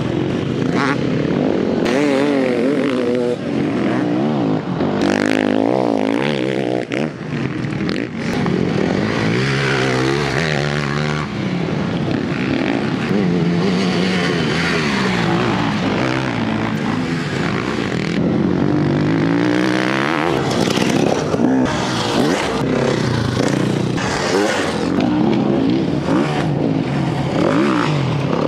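Several off-road motorcycle engines running hard, their pitch repeatedly climbing and dropping as the riders accelerate and shift through the track.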